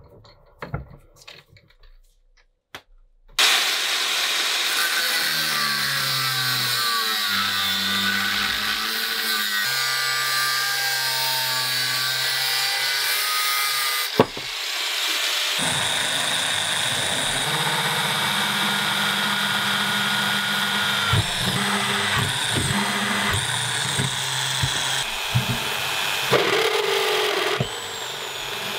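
A few light clicks of metal being handled at the vise, then an angle grinder cutting square steel tube clamped in a vise, running loud and steady with a pitch that wavers under load. About a second before the end the sound changes as a drill press bores through the steel tube.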